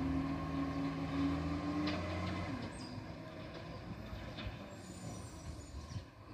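Iveco Acco rubbish truck's diesel engine pulling away, its note rising slightly in pitch. After about two and a half seconds the note drops out and the sound fades as the truck drives off.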